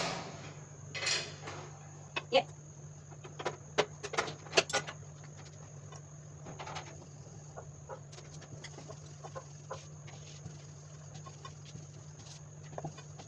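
A roti cooking on a tawa over a gas stove: a steady low hum with scattered short clicks and knocks, most of them in a cluster about two to five seconds in.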